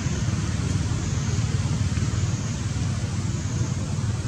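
Steady low rumble of outdoor background noise, with a fainter even hiss above it and no distinct calls or knocks.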